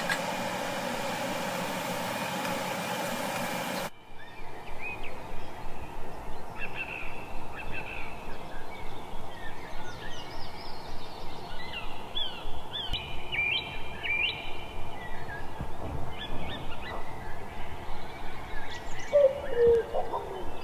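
A steady even noise cuts off suddenly about four seconds in. After that, small birds chirp and whistle in short rising and falling calls over a regular scraping of a wooden spatula stirring masala in a frying pan, about three strokes a second.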